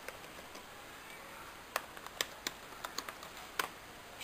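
Typing on a laptop keyboard: irregular key clicks, faint at first and then louder and closer together from a little under two seconds in.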